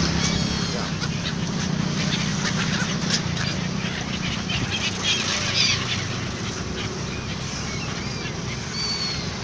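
A large flock of gulls calling, with many short overlapping cries over a steady low hum.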